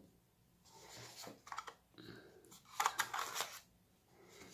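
Cardboard packaging being handled: scraping and rustling as the white paper insert tray is lifted out of the box, in several short bursts with a few clicks, loudest about three seconds in.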